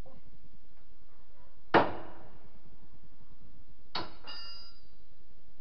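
Two sharp metal clanks about two seconds apart during repair work at a car's front wheel. The first is the louder; the second leaves a brief high ringing.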